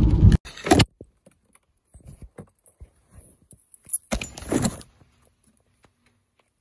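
Car cabin noise stops abruptly at the start, followed by scattered small clicks and a jangle of car keys as someone handles them and climbs out of the car, with a louder shuffling burst about four seconds in.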